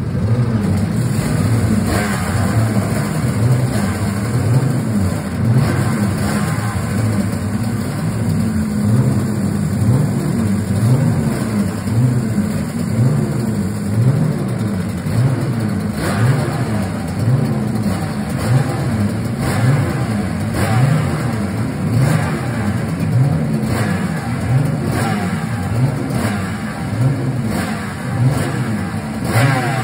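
Suzuki RGV500 two-stroke V4 Grand Prix racing engine running on a paddock stand, the throttle blipped over and over so the revs rise and fall about once a second, with a few seconds of steadier running about eight seconds in.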